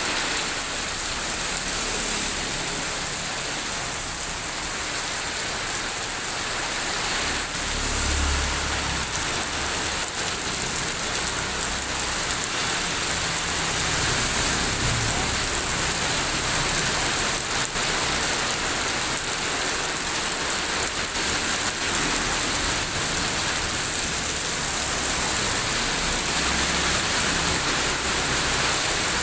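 Heavy rain falling in a steady, even hiss, with a few faint low rumbles about a third and halfway through.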